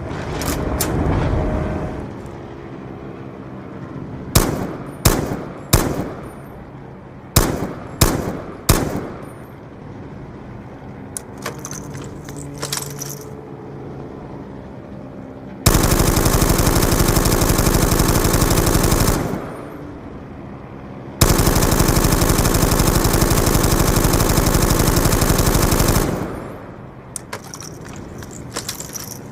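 Maxim MG08/15 water-cooled machine gun firing: two groups of three single shots, then two long full-auto bursts of about three and a half and five seconds, with lighter mechanical clicks and clatter between them.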